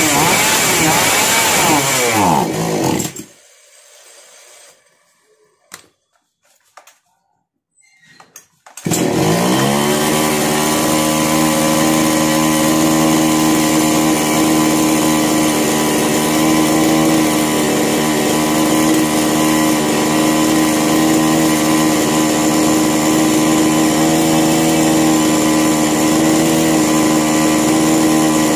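Kisan Kraft KKC SP6522 two-stroke chainsaw engine running with its speed wavering up and down, then cutting out suddenly about three seconds in. After a few faint clicks it fires again about nine seconds in, rises to speed and idles steadily while its carburettor mixture screws are turned with a screwdriver. It dies suddenly as soon as the throttle is pressed, so the carburettor still needs adjusting.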